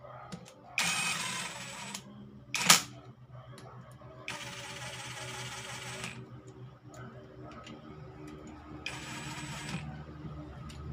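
Hand-held electric power driver spinning in three short runs, about a second, then nearly two seconds, then a second, driving home the bolts of a motorcycle engine's crankcase halves. A single sharp metal clack comes between the first and second runs.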